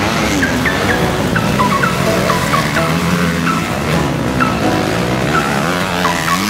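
Motocross dirt bike engines revving hard, several at once, their pitch climbing and dropping over and over as the riders accelerate and shift.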